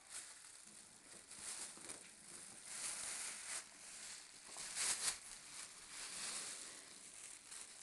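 Thin plastic shopping bag rustling and crinkling as a baby grabs and drags it, in faint irregular bursts with a louder crinkle about five seconds in.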